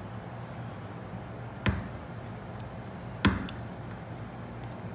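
Two sharp clicks about a second and a half apart as a blade cuts through the plastic tip of a small syringe, over a steady low hum.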